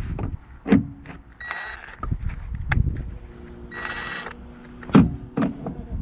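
Two short bursts from a Ryobi P263 cordless impact wrench, with sharp knocks and clunks of handling between them.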